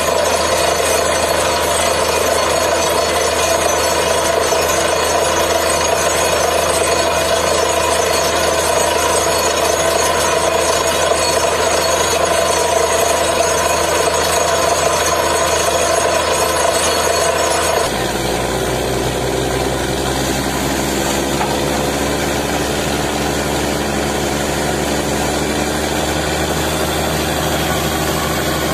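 Borewell drilling rig running steadily, its engine and air compressor blowing water and rock slurry up out of the bore; the gush of water shows the bore has struck groundwater. About two-thirds of the way through, the sound changes abruptly to a slightly quieter, more even engine hum.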